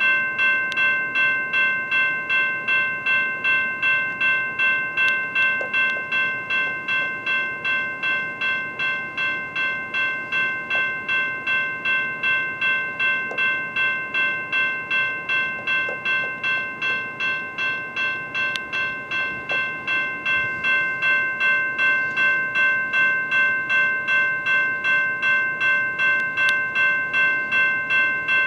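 General Signals type-2 electronic railroad crossing bell ringing steadily, about two strikes a second. The crossing is stuck activated because a gate arm is broken.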